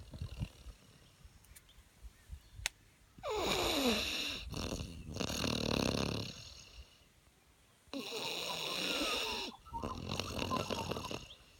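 French Mastiff puppy snoring in its sleep: four long snoring breaths with short pauses between them, the first starting about three seconds in.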